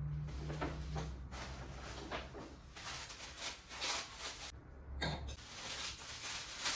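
Drinking glasses and their packaging being handled: rustling and a series of light knocks and clatters as they are moved about. A low hum runs underneath and stops about five seconds in.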